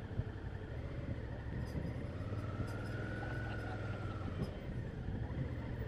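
Motorcycle engine running steadily while riding, with wind and road noise. A whine rises and then falls in pitch over a couple of seconds midway through.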